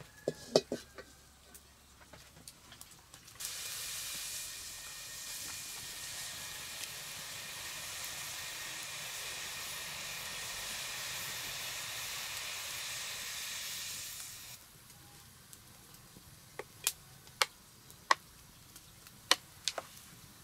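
Food sizzling in a hot pan: a steady hiss that starts suddenly about three seconds in and stops suddenly some eleven seconds later. A few sharp knocks come near the start and again near the end.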